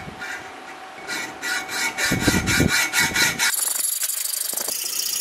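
Hacksaw cutting through a metal pipe clamped in a vice, with quick back-and-forth rasping strokes that grow louder about a second in. Near the end the sawing gives way abruptly to a steady high hiss.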